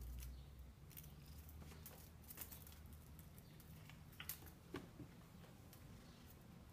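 Faint scattered taps and scuffs of an Exotic Shorthair kitten's paws on a hardwood floor as it pounces at a feather wand toy, over a low steady room hum.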